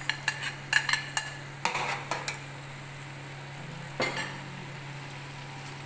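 A metal spoon knocking and scraping against a steel cooking pot as boiled lamb and grated tomato are stirred. There are several quick clinks in the first two seconds and one more about four seconds in, over a steady low hum.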